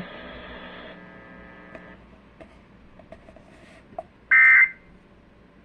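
Emergency Alert System end-of-message data burst over the radio: a loud, harsh half-second electronic buzz about four seconds in, the first of a repeating series. Before it, a faint radio hum fades away and a few small clicks are heard.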